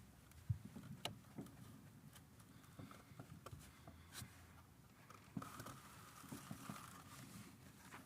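Near silence: room tone with a few faint clicks and a short soft thump about half a second in.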